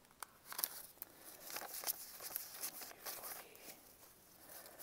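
Faint rustling and crinkling of paper banknotes being pulled from a clear plastic zip cash envelope and fanned out by hand, in short irregular bursts.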